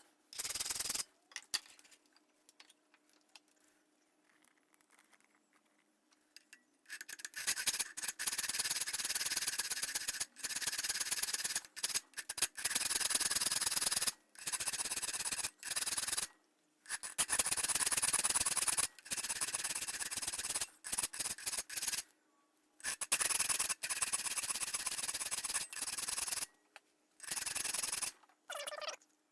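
Hand file being stroked along the spine of a steel cleaver made from a mower blade, with rasping strokes of about a second each. After a pause of several seconds near the start, a steady run of about a dozen strokes follows.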